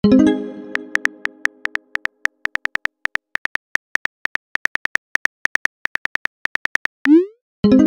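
Chat-app sound effects: a soft plucked chime at the start, then a steady run of keyboard tap clicks, several a second, as a message is typed. About seven seconds in, a quick rising 'boing' swoosh marks the message being sent, and another chime follows just before the end.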